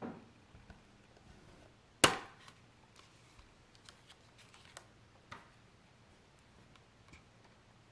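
A metal steelbook case being opened and handled: one sharp clack about two seconds in, then a scatter of light clicks and taps from the case, its discs and a paper insert.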